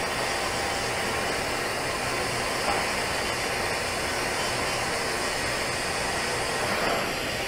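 TIG welding arc burning steadily on a 12-inch steel pipe as filler rod is hand-fed into the joint: an even hiss with a faint low hum underneath.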